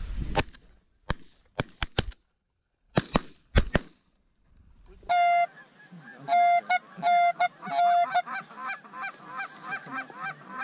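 A quick volley of shotgun shots, about nine over the first four seconds. After a short gap, Canada geese honking: a few longer honks, then rapid short honks about three a second.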